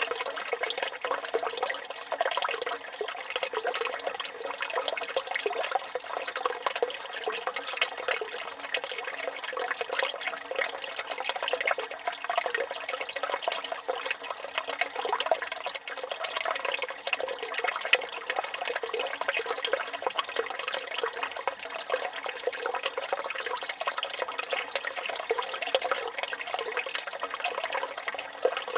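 Water running steadily from a village fountain's spout and splashing, an even, unbroken rush of falling water.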